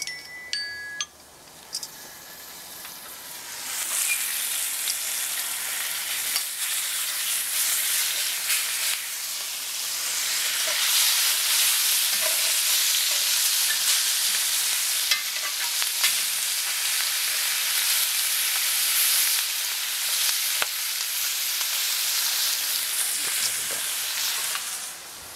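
Sandhill crane steaks searing in butter in a hot cast iron skillet, sizzling steadily. The sizzle swells about four seconds in and grows louder again near the middle, with a few sharp clicks of tongs against the pan.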